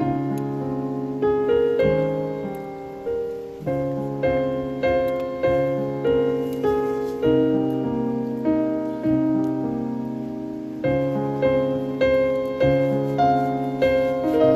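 Solo piano background music: a gentle melody over soft chords, with notes struck every half second or so and left to ring out.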